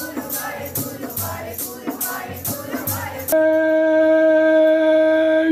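Shabad kirtan: women's voices singing a Sikh hymn together, with a dholak and shaker-like percussion keeping a steady beat. About three seconds in it cuts suddenly to a single long note held at one steady pitch.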